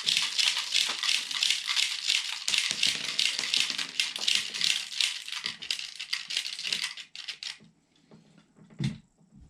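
Plastic airsoft BBs pouring and rattling into a spring-powered airsoft grenade as it is loaded: a dense, fast clatter of small clicks that stops about seven and a half seconds in, followed by a single click near the end.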